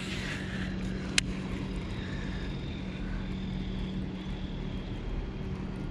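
A steady low motor hum, with one sharp click about a second in.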